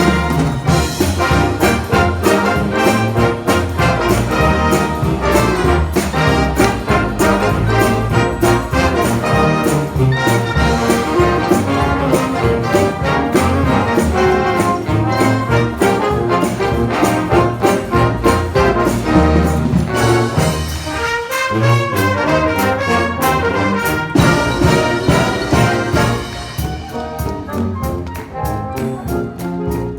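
A high school wind band playing, with trumpets and trombones leading over a steady beat. Near the end the full band drops away to a thinner, quieter texture.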